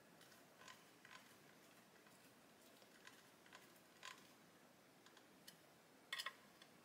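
Faint, scattered small clicks and ticks as a precision screwdriver turns a small screw into a plastic model car door, with a short cluster of clicks near the end.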